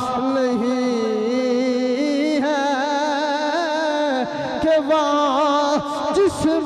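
Voice singing a long, drawn-out line of an Urdu devotional verse (naat) in praise of the Prophet, holding and ornamenting its notes with wavering melismas, with a short break about four seconds in.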